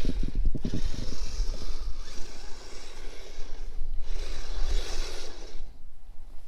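Kyosho Blizzard electric RC snow tractor driving through snow: its motor and tracks run in two spells, with wind buffeting the microphone throughout.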